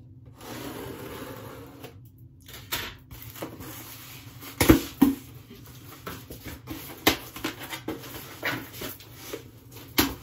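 Scissors cutting packing tape on a cardboard shipping box, then the box being handled and opened: scattered cardboard knocks and rustles, the loudest about four and a half seconds in.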